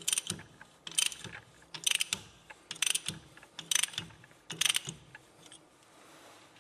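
Socket ratchet wrench with a 13 mm socket being swung back and forth to undo a bolt on a rear axle, a burst of pawl clicks on each return stroke. About six strokes come roughly a second apart, then they stop about five seconds in.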